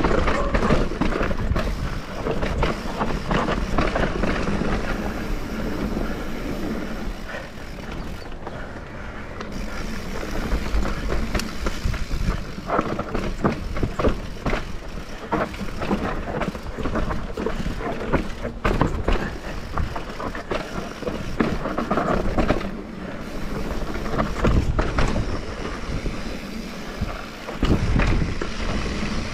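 Mountain bike riding down a bike-park trail: the tyres run over dirt and rock with a steady rush, and the bike rattles and knocks many times over the bumps.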